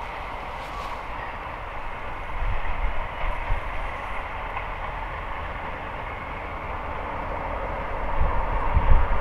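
Steady drone of a diesel locomotive heard before it comes into sight, slowly growing louder toward the end, with wind buffeting the microphone a couple of times.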